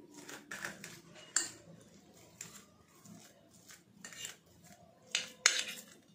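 Steel fork scraping and tapping against a stainless steel plate as it mashes boiled potatoes, in irregular strokes, the loudest about five seconds in.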